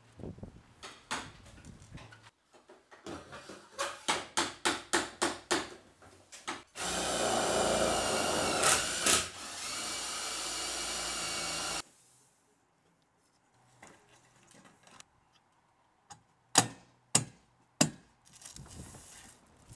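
Cordless drill-driver running for about five seconds, driving a screw into the aluminium roof framework, its pitch dipping briefly as it bites before it cuts off. Before it comes a quick run of regular knocks, about three a second, and near the end there are three sharp knocks.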